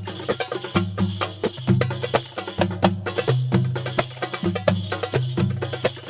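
Background music with a quick percussive beat and a bass line.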